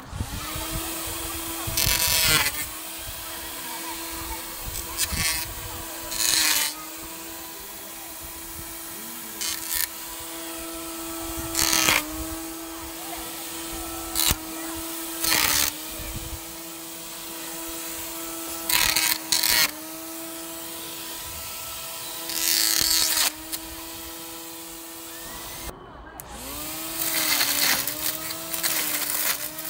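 Small electric string trimmer's head motor whining steadily at high speed. The pitch sags briefly each time the spinning head bites into grass or leaves, with repeated loud bursts of cutting and thrashing noise.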